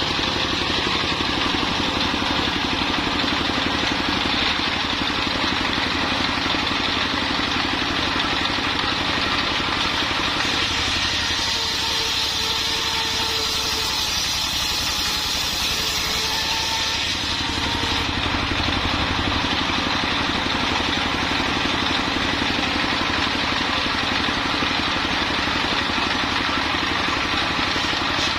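The engine of a mobile circular sawmill running steadily. For several seconds in the middle a higher hiss and a faint whine rise over it.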